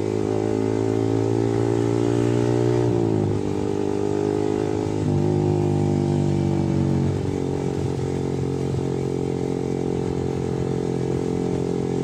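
Yamaha R15 V3's 155 cc single-cylinder engine running through an aftermarket R9 racing exhaust while riding. The note climbs steadily for about three seconds, then drops sharply as the throttle eases. It picks up again about five seconds in, drops once more near seven seconds, and holds a steady lower note after that.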